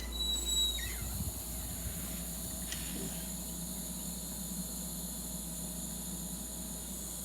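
Steady high-pitched chorus of night insects, crickets, trilling outdoors at evening. There is a brief squeak and a few low knocks in the first couple of seconds.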